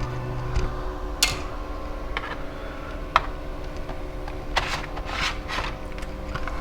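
Handling noises from a laptop being taken apart by hand: a few sharp plastic clicks, then a run of short scraping rubs about two-thirds of the way in, as the bottom-case screws come out and the optical drive is slid free.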